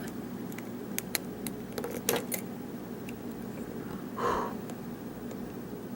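Small faint metallic clicks and ticks of a hook pick and tension wrench working the pins of a Schlage pin-tumbler lock cylinder, scattered through the first couple of seconds. A brief soft hum comes about four seconds in.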